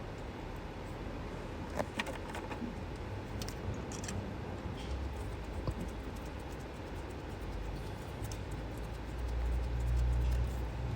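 Light clicks and rattles of ignition coil packs and their plastic connectors being handled and fitted on a car engine, with a low rumble about nine seconds in.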